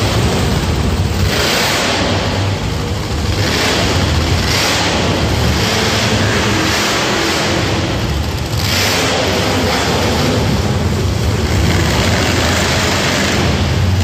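Monster truck engines running loud and revving in the arena: a steady low rumble with repeated surges every second or two as the drivers open the throttle.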